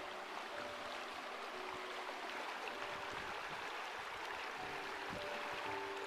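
Shallow river rushing steadily over rocks, with soft background music of a few held notes.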